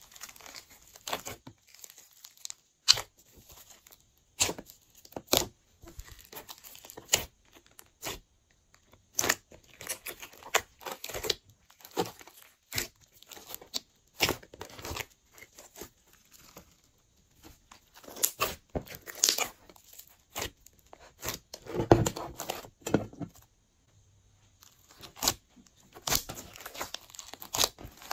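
Hands squishing and kneading glossy slime: irregular sticky pops, clicks and crackles, with a longer run of squelching about three-quarters of the way through.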